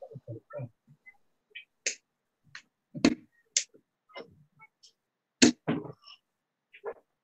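Steel-tip darts striking a Winmau Blade 5 bristle dartboard during warm-up throws. There is a series of short, sharp thuds and clicks with gaps between them, the loudest about three and five and a half seconds in, and softer knocks in the first second.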